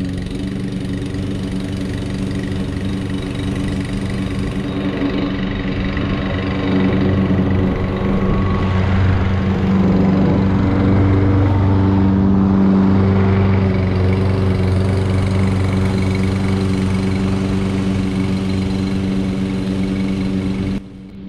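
Gas Toro 22-inch Recycler walk-behind mower's Briggs & Stratton single-cylinder engine running steadily at cutting speed, with a steady engine tone that swells in the middle; the sound cuts off abruptly near the end.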